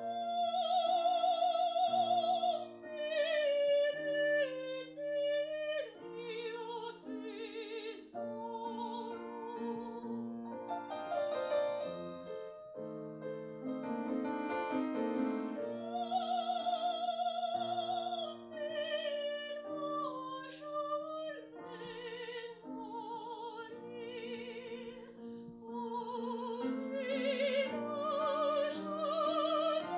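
A female operatic soprano singing with wide vibrato, with piano accompaniment holding chords beneath her.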